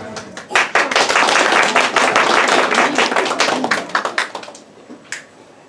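Audience applauding: a burst of clapping that starts about half a second in and dies away after about four seconds, leaving a few scattered claps.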